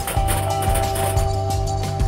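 Background music with held notes over a bass line.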